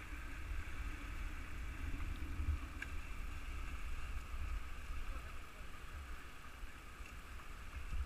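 Steady rush of river water running through small rapids over rocks, under an uneven low rumble of wind buffeting the camera microphone.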